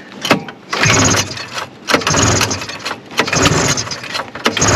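Recoil pull-starter of a 1974 Arctic Cat Lynx's fan-cooled 340 two-stroke yanked four times in quick succession, each pull turning the engine over without it firing. This is a long-stored engine being cranked on brake cleaner sprayed in as a primer.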